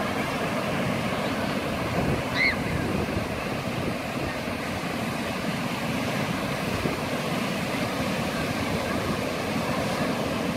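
Ocean surf breaking and washing up the beach, a steady rushing noise. About two and a half seconds in, a brief high-pitched call rises above it.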